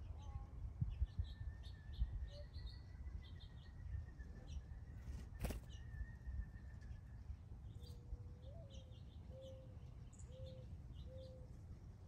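Backyard birds chirping: many short, high chirps scattered throughout, with a run of four low, short notes in the last few seconds and a single sharp click about five seconds in.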